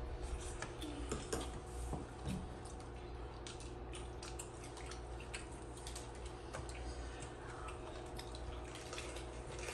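People eating at the table: chewing, lip smacks and small clicks of food and utensils on dishes, scattered and irregular, over a faint steady hum.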